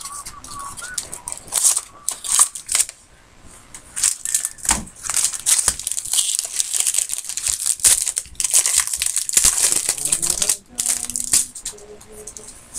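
Foil trading-card pack wrapper crinkling and tearing as it is opened by hand: an irregular run of crackling rustles, with a short lull about three seconds in.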